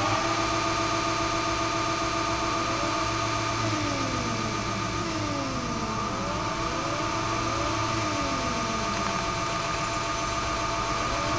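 Crane hoist motors whining: a steady hum of several held tones, with overlapping whines that glide up and back down in pitch every second or two.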